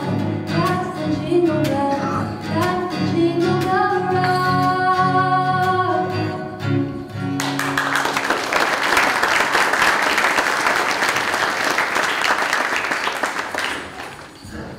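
A woman's solo voice singing with acoustic guitar accompaniment, ending about seven and a half seconds in, followed at once by audience applause that fades out near the end.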